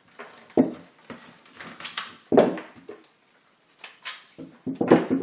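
Close handling noise: a series of irregular knocks and rubbing bumps, the loudest about half a second in, about two and a half seconds in, and near the end.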